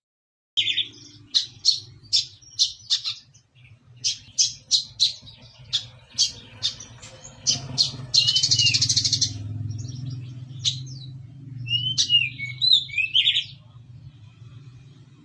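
Brown-throated sunbird singing a rapid run of sharp, high, sparrow-like chirps, with a dense buzzy trill about eight seconds in and a few short slurred notes near the end. A steady low hum runs underneath.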